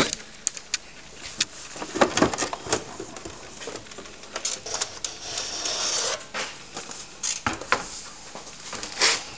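Plastic top cover of a TRS-80 Model III being lifted off its base: irregular clicks and knocks of the case, with a scraping slide about five seconds in and a louder knock near the end.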